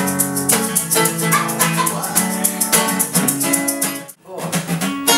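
Acoustic guitar strumming chords with a shaker keeping a quick, even rhythm; the playing breaks off briefly about four seconds in, then picks up again.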